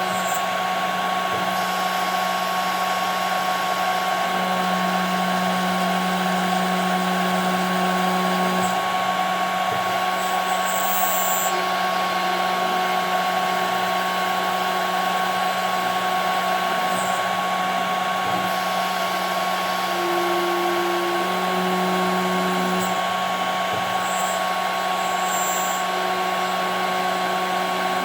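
CNC router cutting 5 mm plexiglass: the spindle runs with a steady whine of several held tones over a constant hiss.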